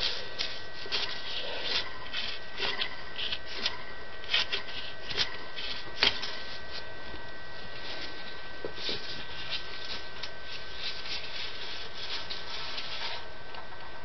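Gloved hands rubbing over and handling the metal housing of a K55 stack ceiling fan motor: irregular short scraping and rubbing strokes that come in bunches, with a faint steady high whine underneath.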